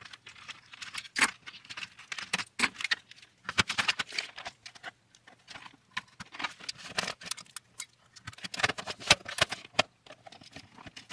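Commodore 64's plastic case being put back together by hand: a run of irregular clicks, taps and knocks as the top half with its keyboard is handled and pressed down onto the base.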